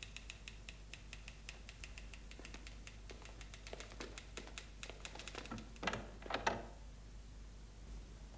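Typewriter keys clacking in quick, uneven runs of about five strikes a second, with two louder knocks about six seconds in.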